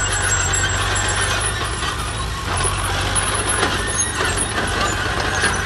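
Fiat crawler tractor's diesel engine running steadily as it passes close by, with clinking and rattling from its steel tracks and the trailing plough. A second tractor's engine runs behind it.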